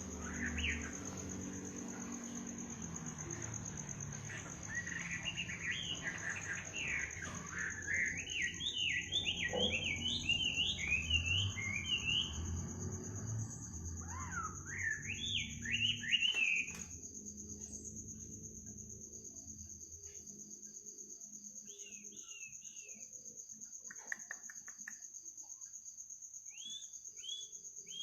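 Night ambience: a steady, high cricket trill throughout, with a bird singing a dense run of quick, sweeping chirps through the first half and only a few short chirps later. Low, steady tones underneath fade out about two-thirds of the way through.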